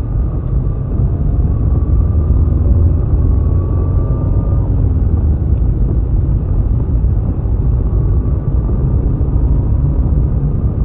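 Steady low rumble of a car driving, picked up by a dashcam inside the cabin, with no distinct impact.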